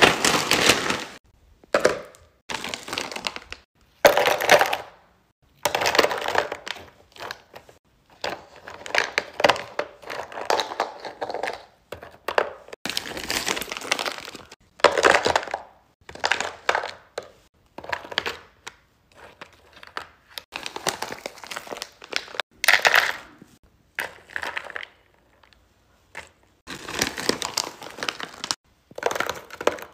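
Plastic bags of frozen fruit crinkling as they are picked up and handled, in irregular bursts with short pauses.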